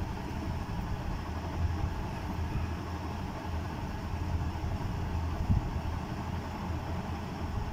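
Steady low background hum under faint noise, with one soft low thump about five and a half seconds in.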